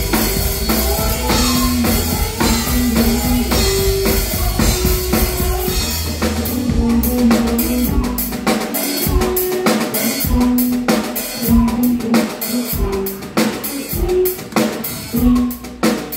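Live rock band playing, mainly drum kit with cymbals, kick and snare, along with guitar notes. About six and a half seconds in, the heavy low end drops away, leaving separate, punchy drum hits between held guitar notes.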